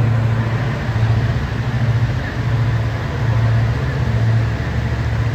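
Motor vehicle engine running, a strong low hum that swells and eases about once a second, with steady road noise.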